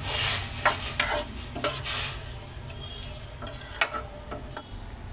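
A steel spoon stirring ghee-roasted vermicelli in a cup of just-added water in a stainless steel kadhai, with a series of wet swishes and scrapes against the pan. They come thickest in the first two seconds, with one more about four seconds in. A light sizzle runs underneath as the water heats toward the boil.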